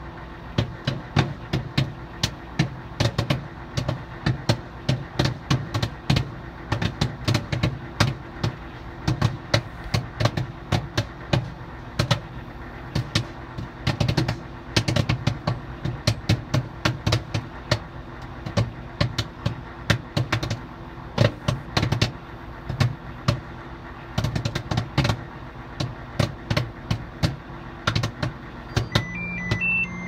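Popcorn kernels popping inside a running microwave oven: many sharp, irregular pops over the oven's steady hum. A few electronic beeps from the oven come near the end.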